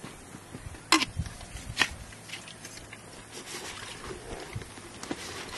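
Two sharp metal clinks of mess tins and food tins being handled, about a second in and again just under a second later, then soft rustling of gear and clothing.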